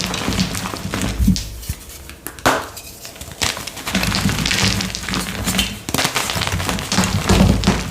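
Blocks of gym chalk being crushed and crumbled by hand: dense, irregular crunching and crackling as the chalk breaks up and the powder falls. The crunching eases off briefly about two seconds in, then picks up again.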